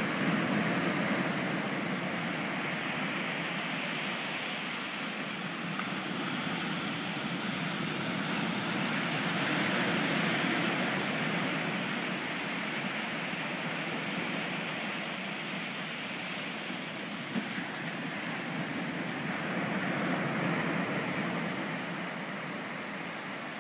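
Ocean surf breaking and washing up a pebble beach, a steady rushing that swells and ebbs about every ten seconds.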